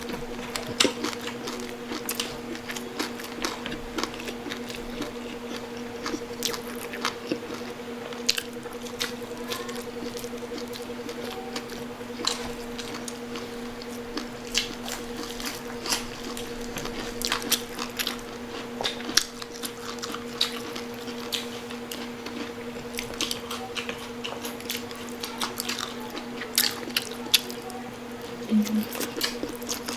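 Crunching and chewing of crispy pata, the fried crackling pork skin breaking in many short, sharp crunches at an irregular pace, over a steady low hum.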